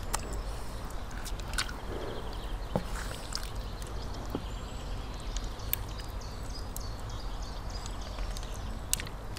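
Handling noise of raw chickens being pushed onto a metal skewer: scattered small clicks and knocks over a steady low outdoor rumble.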